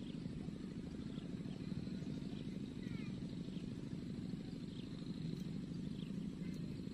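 A steady, low, rapidly pulsing animal chorus, with a few faint high chirps over it.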